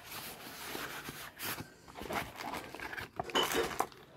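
Foam wrap and plastic packaging rustling and crinkling as they are handled, in irregular bursts, loudest near the end.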